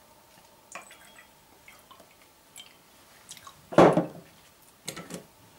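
Soft clicks of a spoon and glass at a kitchen counter, with wet sounds of sauce and food being handled, the loudest about four seconds in and another about a second later.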